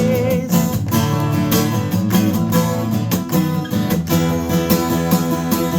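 Instrumental break of a worship song: a band playing with strummed acoustic guitar over a steady beat.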